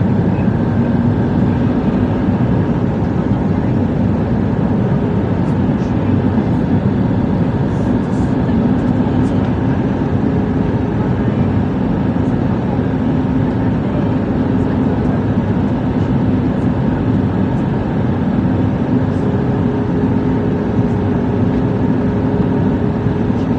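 Steady cabin noise inside a Boeing 737 MAX airliner in flight: a dense, even rumble of engines and airflow with a faint constant hum.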